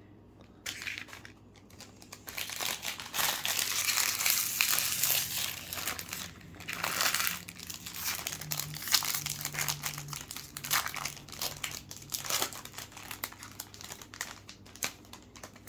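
Plastic foil wrapper of a trading-card pack being torn open and crinkled by hand, busiest for several seconds early on and then thinning to scattered crackles and handling of the cards.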